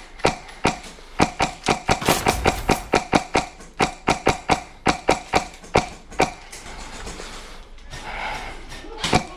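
Airsoft guns firing rapid single shots, about four sharp cracks a second, for the first six seconds. After that there is a stretch of rough noise, and a few more shots come near the end.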